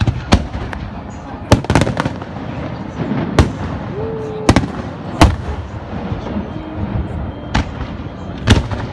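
Fireworks display: aerial shells bursting with sharp bangs at irregular intervals, a dozen or so in nine seconds, some in quick clusters.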